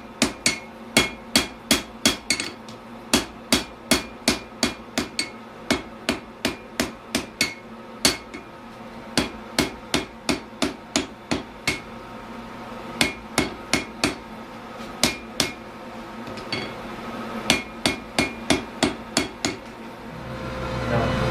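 Hand hammer striking hot steel on an anvil while a froe blade is forged, in quick runs of about three blows a second with short pauses, each blow ringing. A low rushing noise swells near the end.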